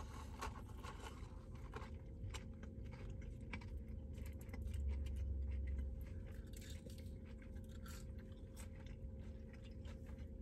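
Close-up chewing and biting of breaded fried chicken tenders and french fries, with many small crunchy clicks over a steady low hum.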